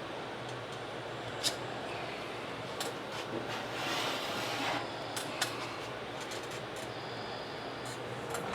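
Steady workshop hum with a few sharp clicks and knocks, and a short rushing hiss about midway.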